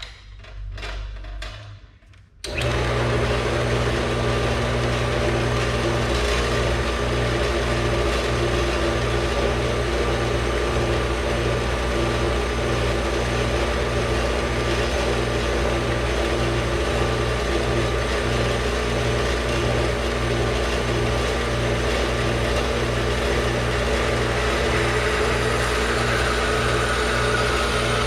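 Metal-cutting power saw cutting steel square tube. It starts about two and a half seconds in, after a few softer knocks, and then runs steadily with a regular low pulse a little under twice a second.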